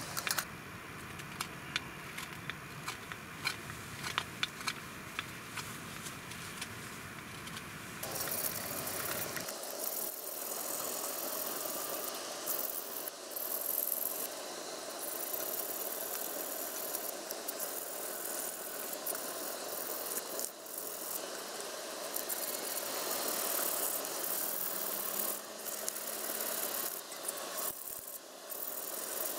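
A knife whittling a wooden spoon by hand, carving and scraping the wood in short strokes. The first several seconds are full of sharp clicks, then it turns to a denser, continuous scraping.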